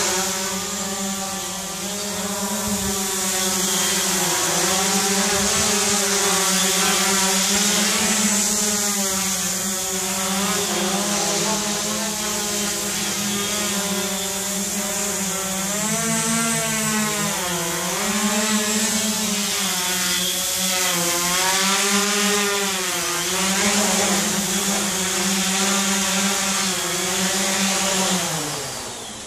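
Tarot 680 Pro hexacopter's electric motors and propellers buzzing in flight, the pitch wavering up and down as the throttle changes. Near the end the pitch falls and the sound drops away.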